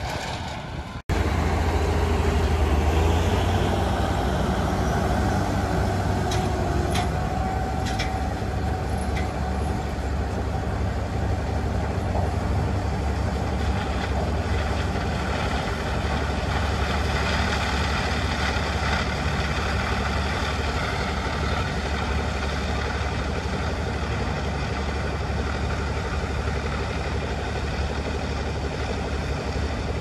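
Combine harvester and tractor with grain cart running in a corn field, heard as a steady deep engine rumble, with a sudden change in the sound about a second in.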